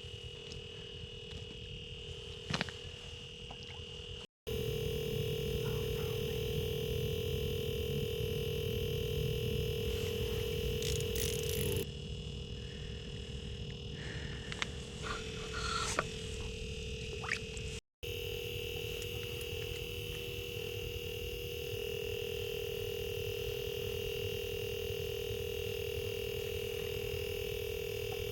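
A steady electronic-sounding tone with a fainter, higher whine above it, broken by a few short clicks.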